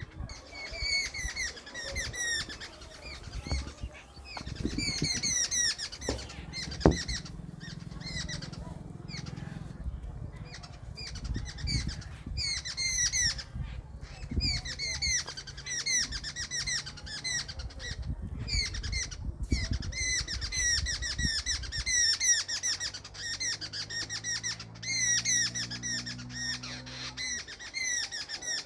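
Birds chirping rapidly and repeatedly, in short curved calls that go on without a break, over a low rumble with a sharp click about seven seconds in.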